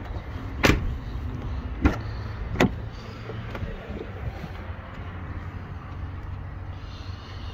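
A pickup truck's rear door being worked: three sharp knocks of the latch and door about a second apart, then a few lighter knocks, over a steady low rumble.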